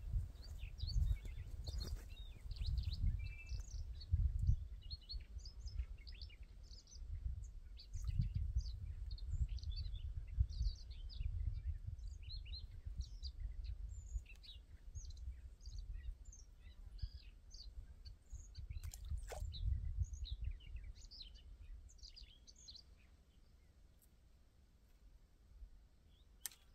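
Small birds chirping and calling all around in a busy, overlapping chorus of short notes. Underneath, a gusty low rumble of wind buffeting the microphone rises and falls, dying down near the end.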